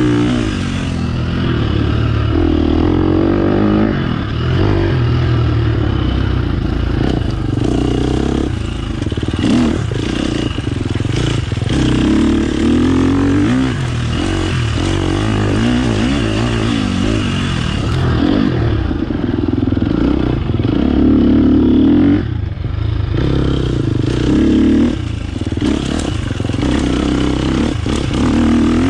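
Dirt bike engine under way, revving up and easing off over and over as the throttle is worked, with one short drop in revs about three quarters of the way through.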